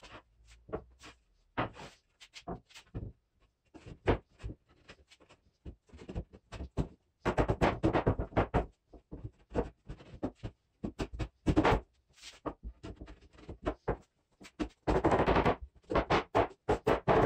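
Irregular wooden knocks and clacks of Baltic birch plywood ribs being slotted together at their notches and set down on a plywood sheet, a dry fit of a torsion box grid. The knocks come in clusters, thickest in the middle and near the end.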